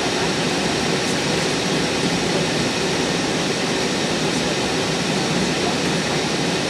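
Steady cabin noise inside an Airbus A321 in flight: the even rush of its jet engines and the air streaming past the fuselage.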